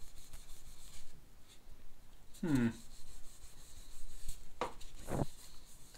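A paper towel rubbing gently back and forth over the painted enamel body of a Necchi Supernova sewing machine, working metal polish into the finish with a soft, scratchy swish. There is a short murmur of voice about halfway through.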